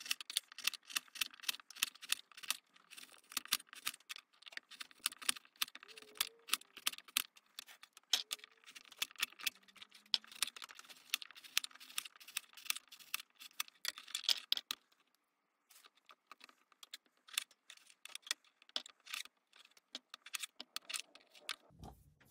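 Kitchen knife slicing a carrot on a plastic cutting board: a quick run of sharp clicks as the blade strikes the board, thinning out about fifteen seconds in.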